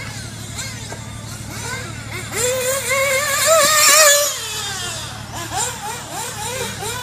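XRAY 1/8 nitro buggy's OS .21 glow engine, a high-pitched buzz rising and falling as it revs and lifts off through the corners. It gets loud and climbs in pitch as the buggy passes close about halfway through, then drops and fades as it pulls away.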